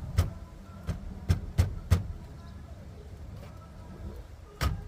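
Sharp knocks as the stock steering wheel is banged and tugged by hand to free it from the steering shaft: five hits in the first two seconds and one more near the end. The wheel stays stuck on its rusted splines.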